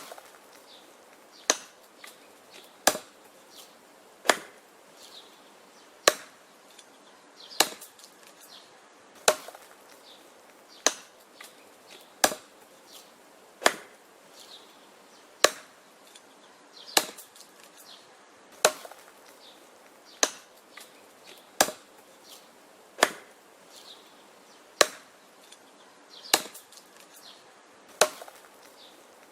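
Axe chopping wood: sharp blows at a steady pace, about one every second and a half, some followed by a lighter knock.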